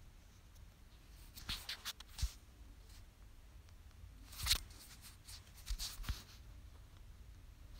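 Faint handling noise: a few scattered soft taps and rustles over quiet room tone, as of a phone being held and tapped.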